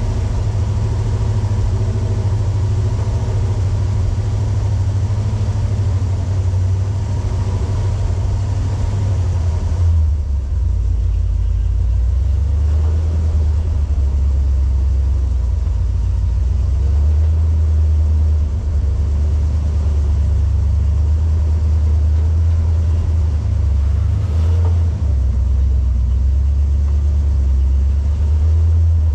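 Off-road vehicle engine running at low revs with a deep, steady rumble while crawling over the trail; about ten seconds in, the higher-pitched part of the noise drops away and the low rumble remains.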